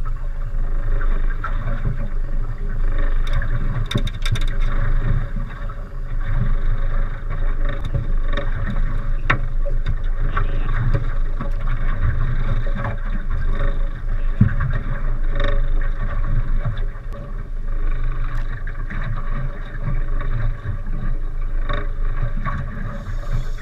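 Steady noise aboard a small boat at sea: a low rumble with water sounds that swell and ebb every few seconds, and scattered small clicks and knocks as fishing line and a reel are handled.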